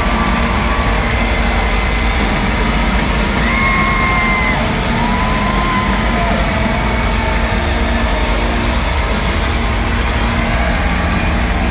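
Live rock band playing loud through an arena PA, heard from among the audience: a dense, steady wall of guitars and drums with a few long held notes over it, and crowd voices underneath.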